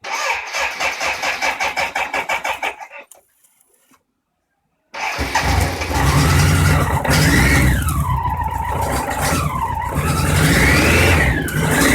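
BMW K100 RS inline-four engine started from cold after standing unused a long time: the starter cranks it in even rhythmic pulses for about three seconds. After a short gap the engine is running and is revved up and down three times.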